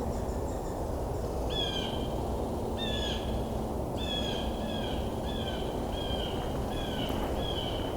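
Blue jay calling: a series of about eight short, harsh, slightly falling calls, starting a second and a half in and then coming in an even run of roughly one every 0.6 s, over a steady low background rumble.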